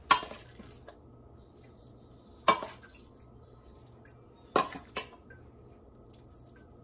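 Metal spoon clinking against a stainless steel mixing bowl while scooping out stuffing: four sharp clinks, the last two close together.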